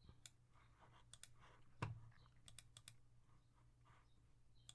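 Faint, scattered taps and clicks of a computer keyboard and mouse, with one louder thump a little under two seconds in, over a low steady hum.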